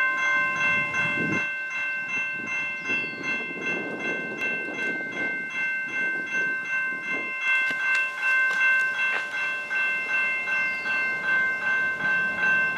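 Railway level-crossing warning bell ringing in evenly repeated strokes, the signal that a train is approaching the crossing.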